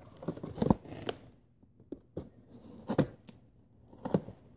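Hands handling cardboard and plastic packaging in a box: a series of separate short rustles and light knocks, with quiet gaps between them.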